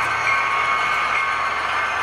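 Model diesel locomotive running slowly along the layout track, a steady hum with a few high whining tones.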